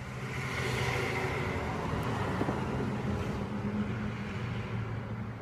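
Hiss of lubricant being sprayed onto a chainsaw's chain and bar for about three seconds, over a steady low engine hum.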